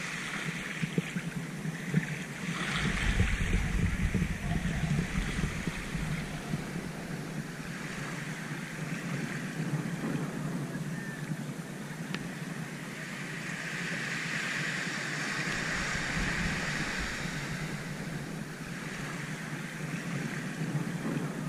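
Small waves washing up onto a sandy beach in a steady hiss that swells twice, with wind buffeting the microphone about three seconds in.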